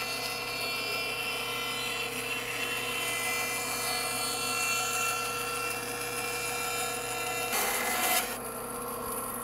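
Bandsaw resawing a solid cherry board into two thin strips: the saw runs steadily with the hiss of the blade cutting through the wood. About eight seconds in there is a brief louder burst, then the high hiss of the cut falls away while the saw keeps running.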